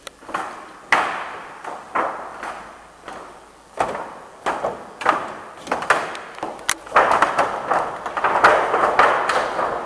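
A series of sharp thuds, about one a second, each trailing off in a rustling hiss. About seven seconds in the thuds give way to a denser, continuous rustle.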